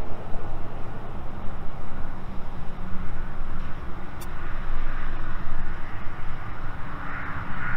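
Airbus A330-300 airliner on final approach: a steady low jet rumble, with an engine whine that grows louder from about five seconds in.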